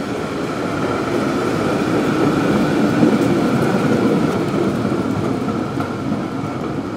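Historic PCC streetcar passing close by on street rails: a rumble that swells to its loudest about three seconds in and fades as the car moves away, with a steady whine over it.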